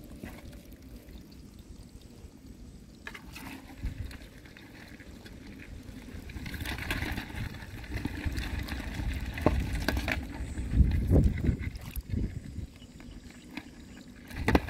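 A hand sloshing and splashing in shallow muddy water while grabbing freshwater crabs, getting louder and busier about halfway through, under a low rumble.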